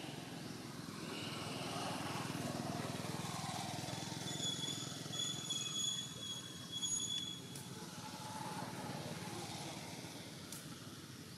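Outdoor ambience: a steady low rumble. From about four seconds in, a thin high whistling tone comes and goes for a few seconds.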